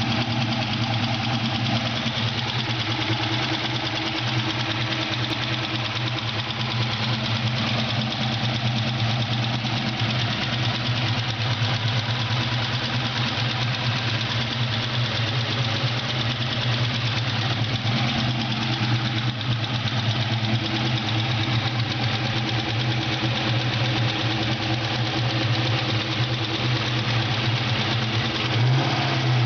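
Ford Mustang GT's 4.6-litre V8 idling steadily with a ticking sound from the engine; the engine speed rises briefly near the end.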